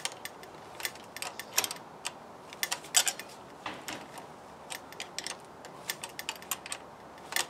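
Irregular small metallic clicks and taps of a spanner working at the self-locking nylon-insert nut that holds a bicycle's brake to the frame.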